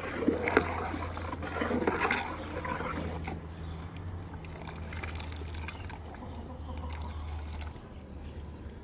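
A large aluminium pot of boiling pulao liquid being stirred with a ladle: sloshing liquid with a few knocks of the ladle against the pot in the first two seconds, then quieter steady boiling.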